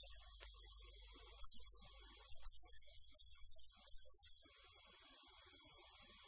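Faint steady electrical mains hum with a thin high-pitched whine and hiss, with no clear speech.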